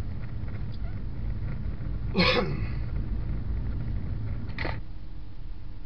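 Steady low rumble of a car driving on a freeway, heard from inside the cabin. A short, loud, sharp noise about two seconds in and a briefer one about four and a half seconds in.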